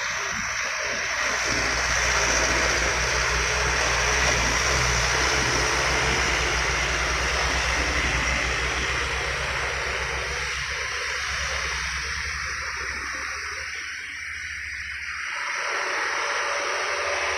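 Diesel engines of loaded sugarcane trucks running hard at full throttle as they pass one after another through a bend, a pulsing low rumble under a loud hiss. The sound eases about fourteen seconds in, then rises again as the next truck comes round the curve.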